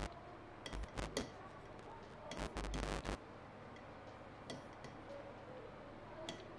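Faint taps and short scraping strokes of a writing tool on a blackboard as lines and arrows are drawn: a few clicks about a second in, a longer stroke around two to three seconds in, and more light ticks later on.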